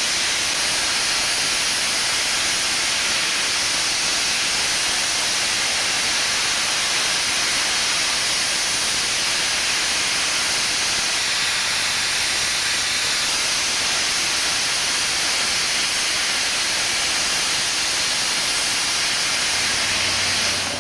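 Steam locomotive blowing off steam: a loud, steady hiss of escaping steam.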